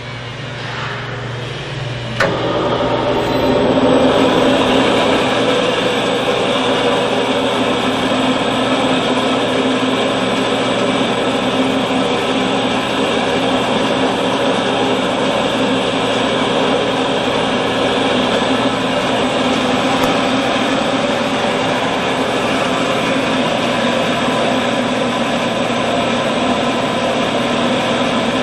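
Stainless steel tri-blender mixer and its liquid supply pump switched on about two seconds in, then running steadily with a machine hum, while water gushes from the inlet into the stainless steel hopper.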